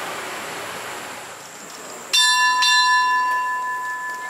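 Thai railway station signal bell struck by hand twice, about half a second apart, a little over two seconds in, then ringing on with a clear, steady tone. It is rung to announce an approaching train.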